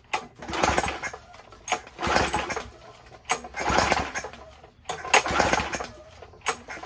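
Briggs & Stratton 4.5 hp pressure-washer engine being pull-started about five times, each recoil-starter pull cranking it briefly, about a second and a half apart. It turns over with compression but never fires.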